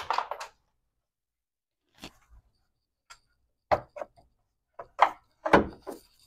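Plastic coolant reservoir (degas bottle) of a 2001 Ford Taurus being pulled and worked up out of its mount: a series of irregular knocks and clunks. The loudest come about five seconds in, including one heavier thump.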